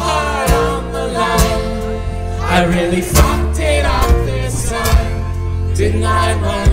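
Live band playing through PA speakers: a sung lead vocal over electric and acoustic guitars, with a strong, continuous bass line and regular sharp hits.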